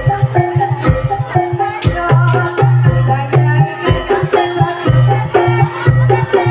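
Live jaranan accompaniment: hand drums beating a steady rhythm, about two strokes a second, under ringing metal gong-chime notes and a low sustained gong-like tone, with a sharp click about two seconds in.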